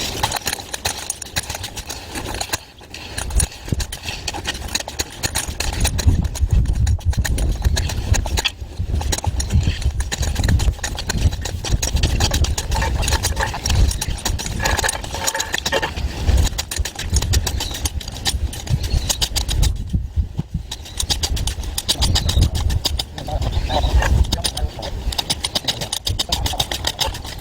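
Homemade concrete compaction tool running, a rapid rattling vibration with a strong low hum. It breaks off briefly three times, near 3 s, 9 s and 20 s.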